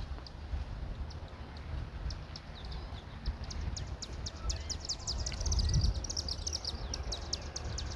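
Birds chirping: a rapid run of short, high, falling chirps that starts about two seconds in and grows denser toward the end, over a low rumble.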